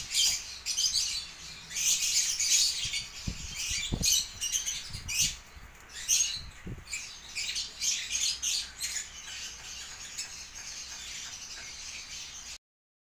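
Small birds chirping and twittering in quick, irregular bursts, with a few soft low thumps in the middle; the sound cuts off suddenly just before the end.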